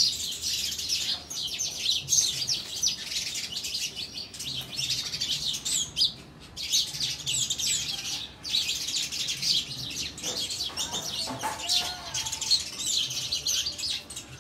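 A flock of house sparrows chirping, many birds calling over one another in a dense, continuous chatter, with a couple of brief lulls.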